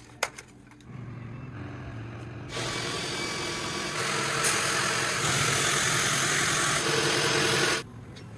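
Montana Crystal One ski-tuning machine running and grinding a ski. Its steady grinding noise builds from about a second in, grows louder twice, and cuts off suddenly near the end. A short click comes just after the start.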